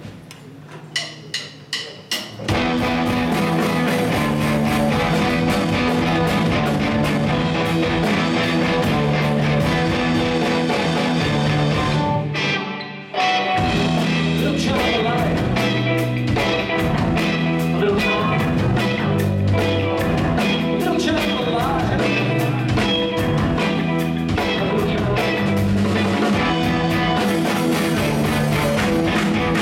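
Live rock band with electric guitars, bass and drums playing. A few separate hits open, then the full band comes in about two seconds in, stops abruptly for about a second near the middle, and comes back.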